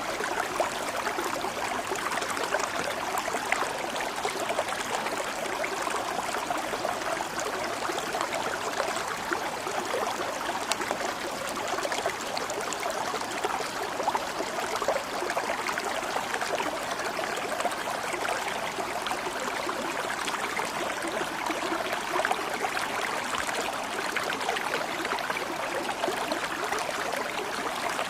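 Water flowing steadily, a continuous babble of small splashes with no pauses and no thunder.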